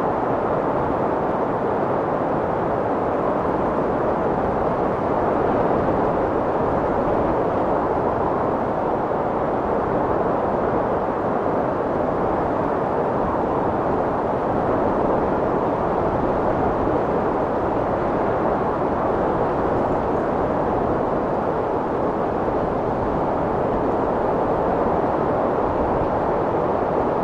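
Strong wind blowing steadily, a continuous rushing noise with slight slow swells in strength.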